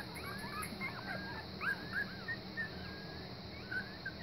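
Week-old German Pinscher puppies squeaking and whimpering: many short, high cries that rise and fall, overlapping one another throughout.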